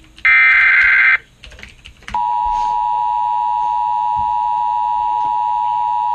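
Emergency Alert System tones: a burst of SAME digital data tones, a harsh warbling screech, runs until about a second in. After a brief pause with a few faint clicks, a loud, steady single-pitched EAS alert tone starts about two seconds in and holds.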